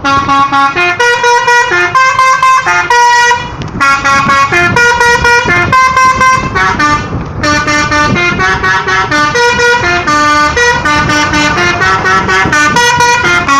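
Indonesian bus "telolet" horn: a multi-tone musical horn playing a quick tune of short stepped notes, breaking off briefly twice.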